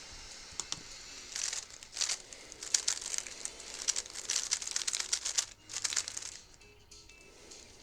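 A 3x3 speedcube being turned fast by hand, its plastic layers clicking and rattling in quick runs that start about a second and a half in and stop about six seconds in.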